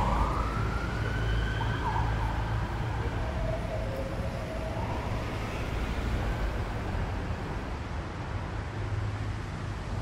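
Emergency vehicle siren wailing, its pitch rising and falling, fading out about halfway through, over a steady low rumble of city street traffic.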